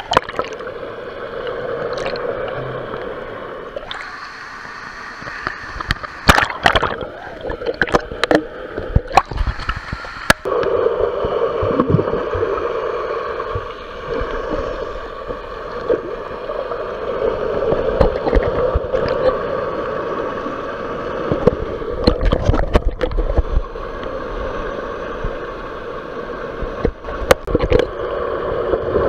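Pool water heard with the microphone underwater: a steady muffled hum with bubbling, and several sharp knocks and splashes, about six seconds in, near ten seconds, and around twenty-two and twenty-seven seconds.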